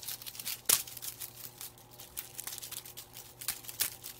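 A cat at play making irregular light clicks, taps and rustles, with a few sharper knocks about a second in and again near the end.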